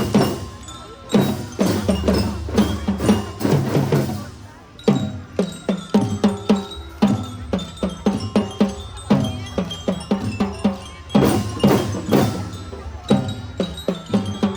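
Kindergarten drum band playing: a quick rhythm of drum strokes under a ringing, bell-like melody.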